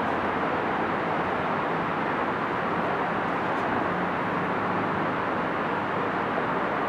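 Steady outdoor city background noise, an even rushing hum, with a faint low drone coming in about four seconds in.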